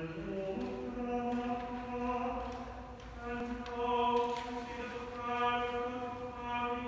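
Unaccompanied voices singing a slow chant-like Advent responsory in long held notes on a single melodic line, in a large stone church.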